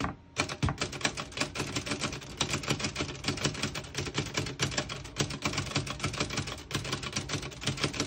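A 1941 Remington Quiet Model 1 portable typewriter being typed on: a quick, steady stream of muffled keystroke clacks, several a second. The keys strike cleanly, with none skipping or sticking.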